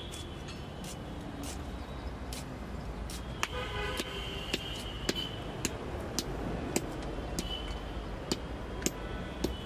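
Vehicle horns toot a few times over a low, steady traffic rumble: a longer toot about a third of the way in and shorter ones later. Sharp clicks sound about every half second throughout.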